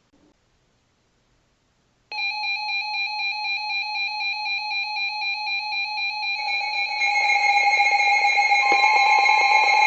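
Weather alert radio alarms sounding for severe thunderstorm warnings: a pulsing electronic alarm tone starts about two seconds in, about three pulses a second, and a second and then a third alarm tone join about four and five seconds later, making it louder.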